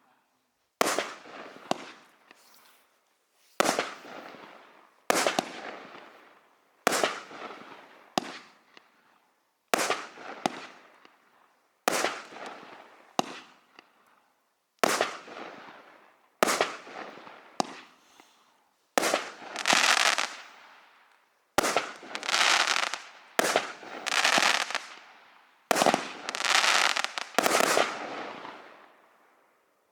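A 16-shot 1.4G consumer fireworks cake firing its shots one after another, about one every one to two seconds: each a sharp bang followed by a fading crackle. The later shots come closer together with longer crackling tails, and the firing stops near the end.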